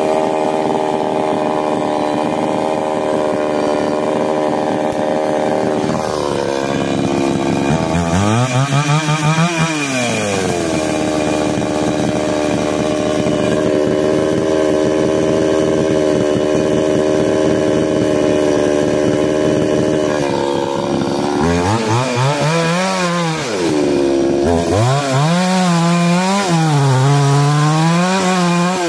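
Ogawa two-stroke chainsaw with a 22-inch bar running at full throttle as it cuts into a white seraya trunk. Around eight seconds in, the engine drops off and revs back up. From about two-thirds of the way through, it revs up and down at lower speed before going back to full throttle near the end.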